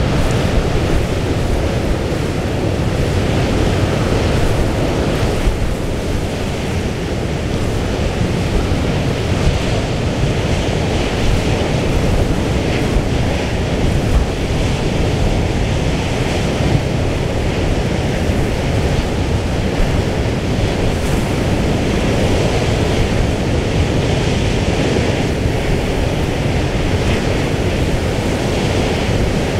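Storm wind buffeting the microphone over the steady rush of a rough, whitecapped sea.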